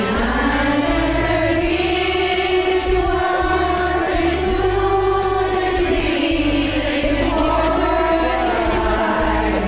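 A group of women singing together in unison over a musical accompaniment, each recorded on a phone earphone microphone and mixed into one karaoke-app group cover.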